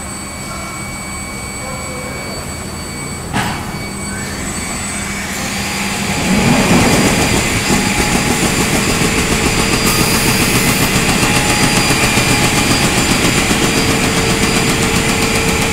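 Industrial panel saw cutting chipboard sheets into parts. It starts as a steady machine hum with a single sharp click a little over three seconds in. From about six seconds it turns into a louder, rough noise with a fast, regular pulse.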